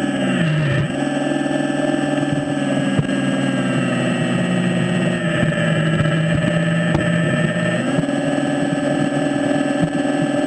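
RC excavator's electric hydraulic pump running with a steady whine. Its pitch drops briefly about half a second in and sits lower for several seconds in the middle before coming back up, as the boom and bucket are worked under load. A few light clicks are heard.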